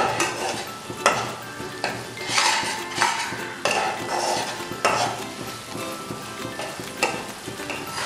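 A spatula scraping and stirring a thick masala frying in ghee in a pan on high flame, with a steady sizzle under it. The scrapes come about once a second.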